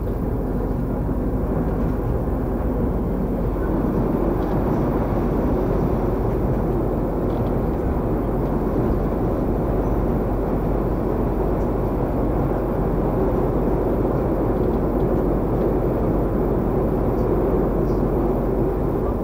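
Steady running rumble of a passenger train, heard from inside the carriage as it travels along the line.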